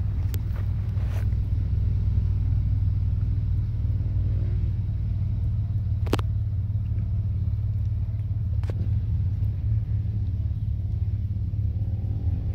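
Chevy Colorado ZR2 pickup's engine running low and steady as the truck crawls slowly up a rutted dirt trail. Two sharp clicks come in the middle.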